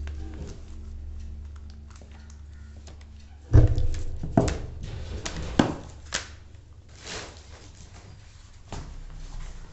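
Handling knocks and clicks as a laptop charger cable is fitted and plugged in. There is one sharp knock about three and a half seconds in, then a few lighter clicks and taps, with some rumble of handling underneath.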